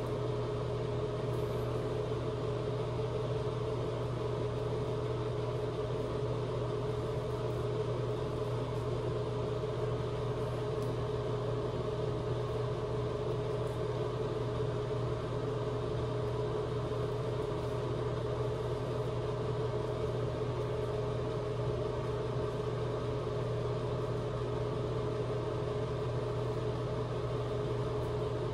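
A steady mechanical hum holds at one pitch throughout. Faint, short scrapes of a straight razor cutting through lathered stubble come now and then.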